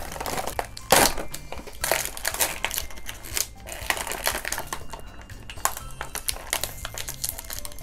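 Clear plastic toy packaging crinkling and crackling as hands pull it apart and unwrap small toys from it, with the sharpest crackle about a second in.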